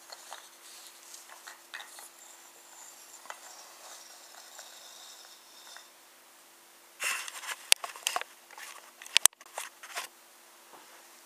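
Handling of a small wooden toy train: a few light clicks and taps at first, then a burst of sharper wooden knocks and rattles from about seven to ten seconds in, two of them especially sharp, as the train is set down on the table.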